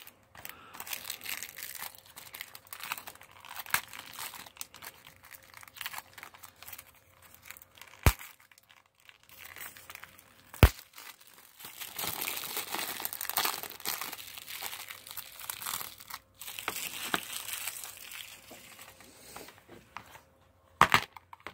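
Clear plastic shrink-wrap crinkling and tearing as it is peeled off a DVD case, in uneven bursts of crackle, with three sharp clicks along the way.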